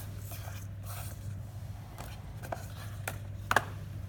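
Plastic toolbox-style memory card case being handled and opened: scattered light clicks and scrapes from its latches and lid, with one sharper click near the end.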